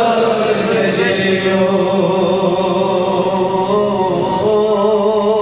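A man chanting a devotional Kashmiri naat, holding long, wavering notes and moving to a new note about four seconds in.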